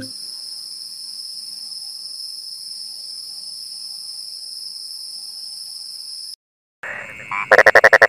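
A steady, high-pitched insect buzz, unbroken, which cuts off about six seconds in. After a short gap, a toad gives a loud, rapid pulsed call near the end.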